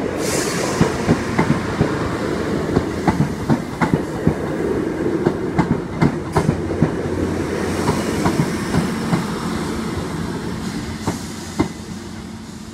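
Northern multiple-unit passenger train passing through a level crossing: a steady rumble with rapid clickety-clack of its wheels over the rail joints, fading near the end as the train draws away.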